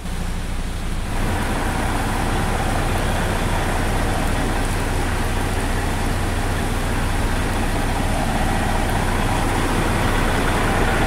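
Heavy rain falling steadily on the road, with a bus's engine idling underneath as a steady low hum. The rain noise rises about a second in.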